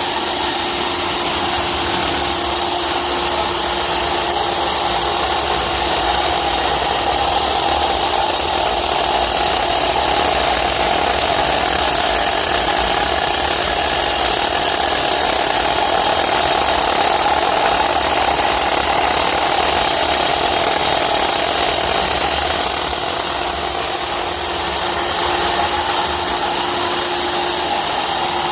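A machine running steadily and loudly, with an even hiss and a steady hum throughout.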